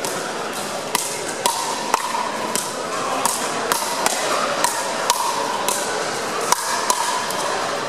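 Pickleball paddles hitting the hard plastic ball in a fast rally: a run of sharp pops, about two a second, each ringing briefly in a large gym hall.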